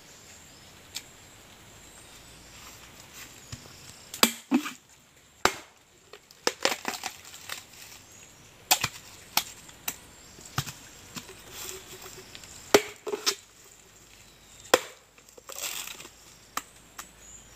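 Machete chopping into the husk of young green coconuts (buko): sharp, irregular whacks, about a dozen of them, beginning about four seconds in.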